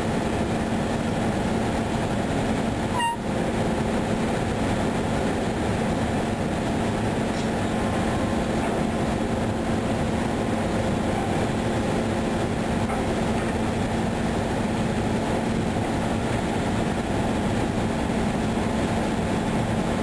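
Steady drone of a ship's engine and deck machinery, a broad even rumble with a constant low hum running through it.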